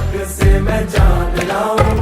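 Background music: an upbeat Hindi film song with a steady beat of about two strong bass beats a second under a melody line.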